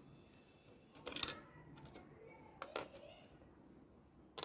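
Small gear wheels of a wall-clock movement being pulled out and handled: a quick cluster of clicks and rattles about a second in, another click near three seconds, and a sharp click at the end.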